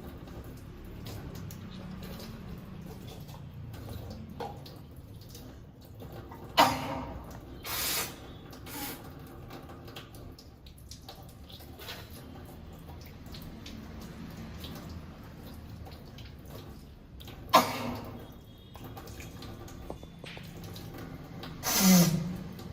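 Water running steadily from a tap, with dripping, as a sutra neti catheter is washed. Several sudden loud sounds break in, three of them standing out: one about a third of the way in, one past the middle and one near the end.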